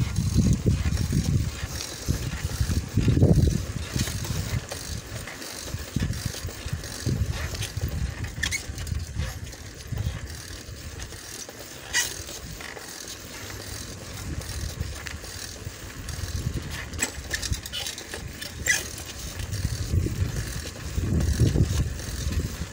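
Bicycle riding along a paved lane: low gusty rumble of wind on the microphone, with the bike's light rattling and a few sharp clicks.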